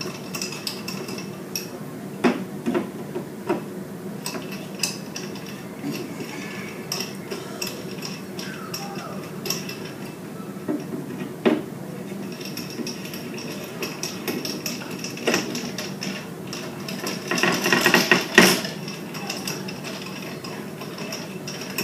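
Scattered metallic clinks and knocks as the metal stand rods of a ripple tank are fitted and screwed into its frame by hand, with a burst of louder knocks about three-quarters of the way through.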